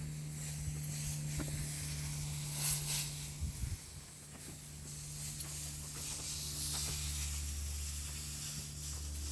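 Diesel engine of a Bobcat S450 skid steer running steadily, heard as a low hum under a hiss, with a few faint knocks.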